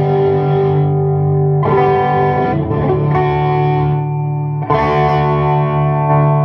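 Electric guitar played through a 1987 Marshall JCM800 2210 valve amplifier head with distortion, sustained chords left to ring and new ones struck three times, about one and a half seconds apart.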